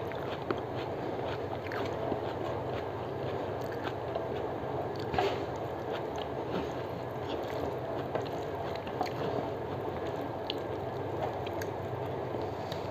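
Eating rice by hand: fingers mixing and scraping rice against a steel plate, with chewing and small mouth clicks, over a steady background noise.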